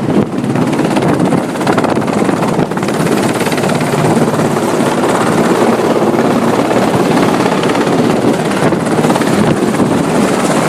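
Helicopter running loud and steady, the rotor and engine noise filling the sound without letting up.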